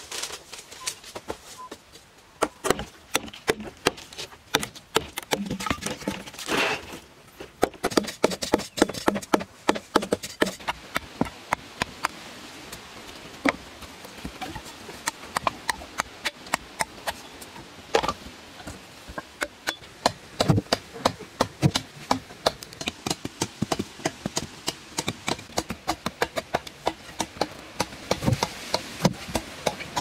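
Repeated sharp knocks of a blade chopping wooden poles and of wood and bamboo poles knocking together, coming in quick runs of several strikes a second with short pauses.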